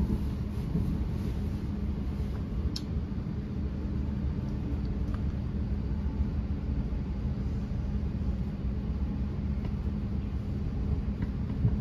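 Steady running rumble heard inside a moving Thameslink electric train, with a constant low hum and a faint click about three seconds in.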